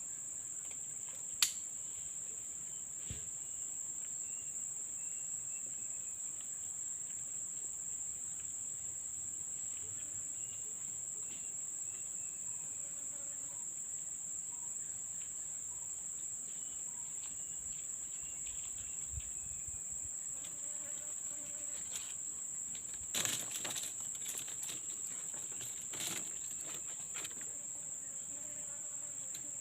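Steady, high-pitched insect drone that runs on unbroken. A sharp click comes about a second and a half in, and a few brief knocks come near the end.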